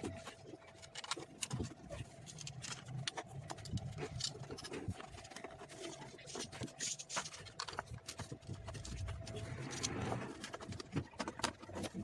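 Irregular clicks, taps and knocks of pliers and screwdriver on the plastic switchboard and its sockets as they are worked loose, over a faint steady hum.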